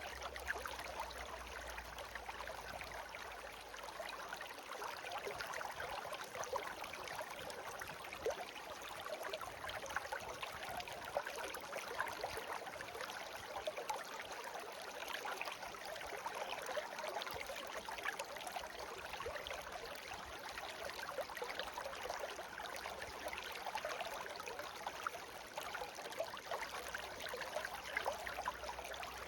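Shallow stream flowing and babbling steadily over stones.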